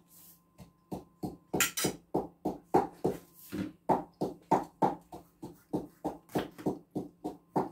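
Kitchen knife chopping vegetables on a cutting board in a steady run of sharp knocks, about three to four cuts a second.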